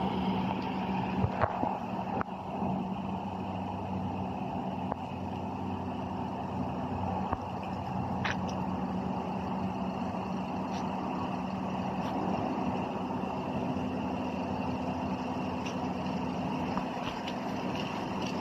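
A motor running with a steady low hum, with a few faint ticks.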